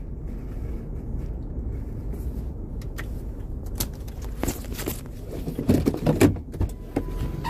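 A vehicle's engine runs with a steady low rumble. From about three seconds in come scattered clicks and knocks, loudest around six seconds.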